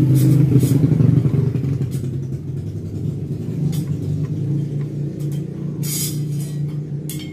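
A motor vehicle engine running steadily with a low hum, loudest in the first second, with a few short clicks on top.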